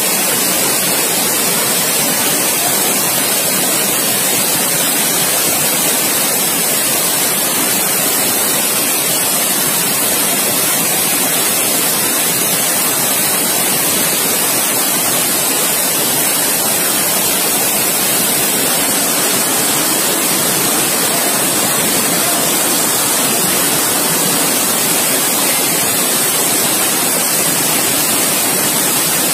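Torrent of floodwater rushing past in a steady, loud, hissy rush with no let-up.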